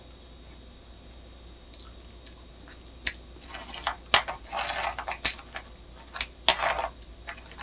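Metal chopsticks clicking against a plastic side-dish tray: about five sharp clicks starting some three seconds in, mixed with soft, wet rustling as food is picked up and laid onto a lettuce wrap.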